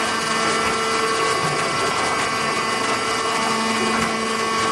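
Horizontal hydraulic baler running: its motor and hydraulic pump give a steady hum with a constant whine over a mechanical noise.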